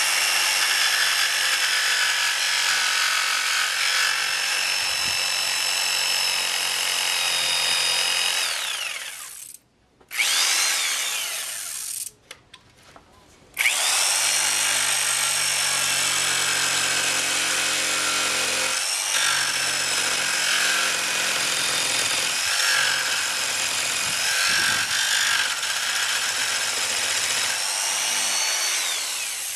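Old corded electric jigsaw cutting a wooden board with a steady whine, clearing out the corner left where two circular-saw cuts meet. It winds down about nine seconds in, starts and stops briefly around ten seconds, then runs again from about fourteen seconds and winds down near the end.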